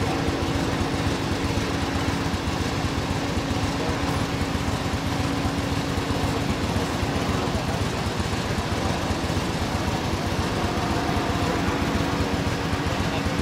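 Emergency vehicles' engines idling: a steady drone with a constant hum, unchanging throughout.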